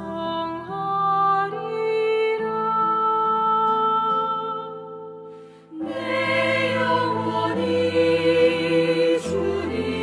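Slow Christian hymn music with long sustained chords. After a brief fade, a fuller choir-like passage of voices with vibrato swells in about six seconds in.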